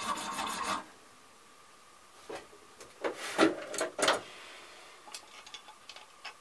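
Small hand frame saw rasping through the sprue on a cast brass butt plate for under a second, then stopping. Then a few sharp clicks and knocks as the saw frame is handled and its blade tension adjusted, followed by small ticks.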